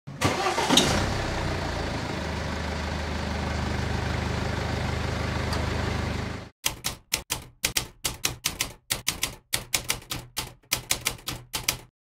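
An engine starts with a burst and runs steadily for about six seconds, then cuts off. It is followed by a quick run of typewriter keystrokes, about four a second.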